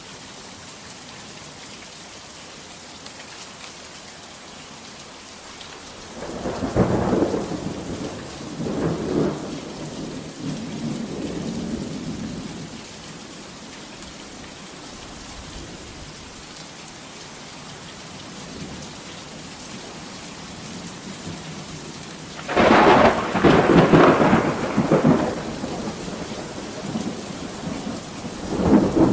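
Heavy, steady rain with thunder. One roll of thunder starts about six seconds in and rumbles on for several seconds. A louder, sharper peal comes a little past twenty seconds in, and another begins right at the end.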